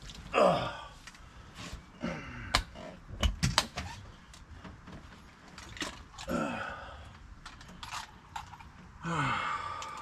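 A man grunting and sighing, four falling breaths out, winded from fighting a large catfish. Sharp clicks and knocks of handled gear fall between the breaths.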